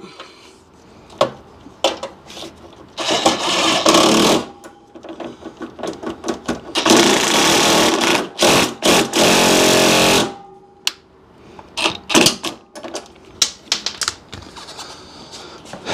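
Cordless power driver spinning a socket on a flexible extension to run in bolts, in two main runs: a short one a few seconds in and a longer one of about three seconds that cuts off suddenly. Short clicks and knocks of the socket and tool come between the runs.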